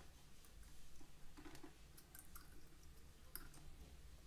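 Faint handling sounds: a few soft, brief rustles and clicks as fabric backed with paper stabiliser is held and moved, over a quiet room.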